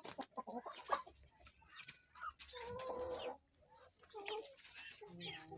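Penned fowl calling and clucking: a run of short, scattered calls, with one longer held call about two and a half seconds in.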